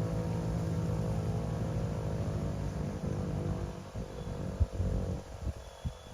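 American Signal T-128 air raid siren sounding a steady, several-toned pitch that fades away about four seconds in, as the siren test comes to an end. A single sharp low knock follows shortly after.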